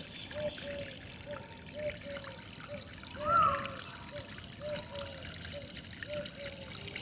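Water trickling and flowing, with a bird calling in a steady run of short, repeated low notes and one louder rising-and-falling call about three seconds in.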